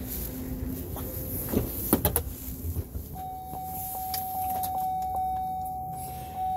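Pickup truck door latch clicking open about two seconds in, then the cab's dashboard warning chime sounding as one steady tone from about three seconds in.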